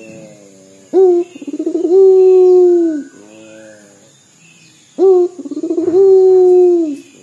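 Barbary dove (puter) cooing, twice: once about a second in and again about five seconds in. Each call is a short opening note, a quick rolling stutter, then a long drawn-out coo that falls away at the end.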